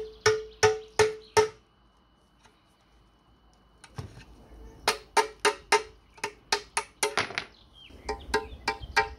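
Hammer blows on a punch set against a riveted latch on a rusty steel stove body, each blow ringing briefly. Five quick strikes, a pause of about two seconds, then a longer run of about three strikes a second.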